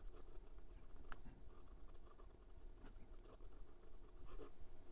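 Broad fountain pen nib writing cursive on notebook paper: faint, uneven scratching of the nib across the page, with just a hint of feedback from an otherwise very smooth, wet-writing nib.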